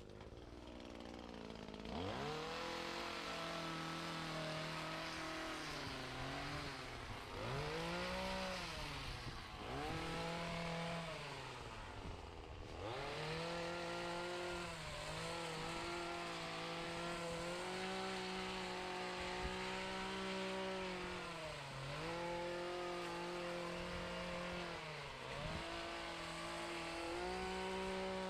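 Small gas engine of lawn equipment starting up and running. Its pitch drops and climbs back again and again as the throttle is eased off and opened.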